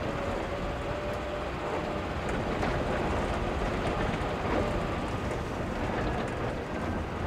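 A 1966 Morris Minor driving over a bumpy road, heard from inside the car: a steady rumble of its four-cylinder engine and road noise, with small knocks and rattles from the body.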